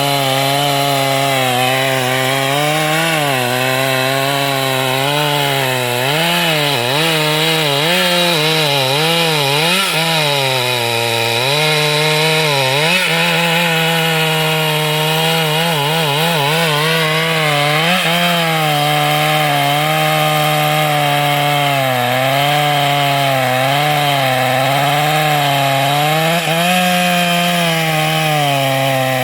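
Chainsaw running continuously while cutting wood, its engine note sagging and recovering over and over as the chain loads up in the cut.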